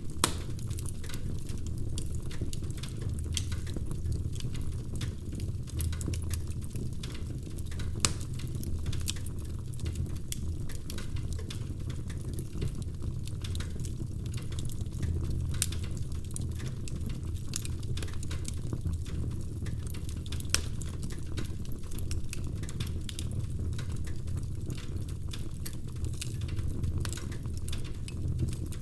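Wood fire crackling in a fireplace: a steady low roar under constant small crackles, with a few louder pops.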